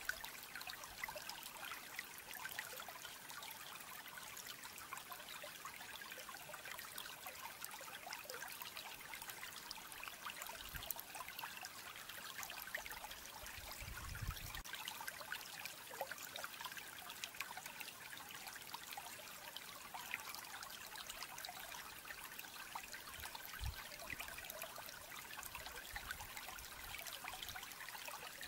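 Faint steady trickling of running water, a fine hiss speckled with tiny ticks, with a few soft low bumps, the clearest about 14 seconds in.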